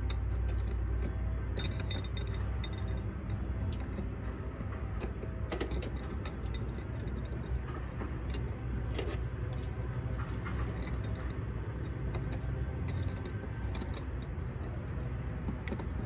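Light metallic clicks and rattles of a floodlight fixture and its mounting hardware being handled and fitted against a porch ceiling, scattered irregularly throughout, over a steady low rumble.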